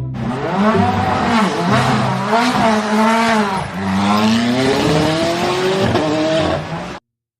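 Race car engine sound, its pitch rising and falling again and again over a rushing noise, cut off suddenly about seven seconds in.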